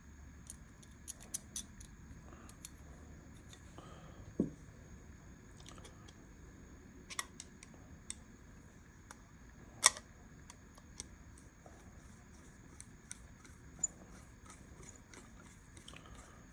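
Small steel parts of a Remington New Model Army cap-and-ball revolver clicking and tapping as they are handled and fitted during reassembly. Light clicks are scattered throughout, with a dull knock about four seconds in and sharper clicks about seven and ten seconds in.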